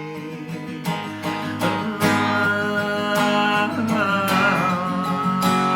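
Acoustic guitar strummed and picked through the instrumental close of a song, with strong chord attacks about once a second.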